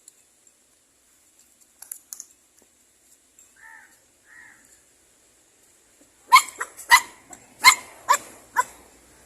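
A dog barking six times in quick succession, starting about six seconds in, after a few faint clicks and soft sounds.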